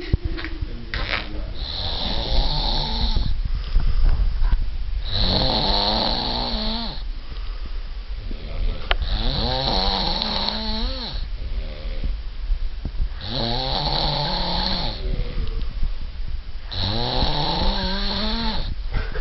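Snoring: five long snores, one about every four seconds, each with a pitch that rises and falls and a hiss alongside.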